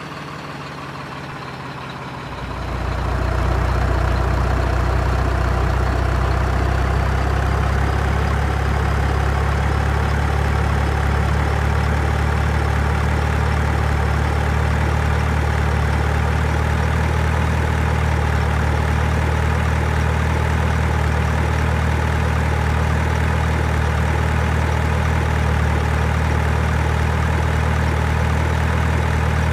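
Simulated diesel truck engine sound from an RC truck, running steadily. It grows louder and deeper about two and a half seconds in, then holds steady.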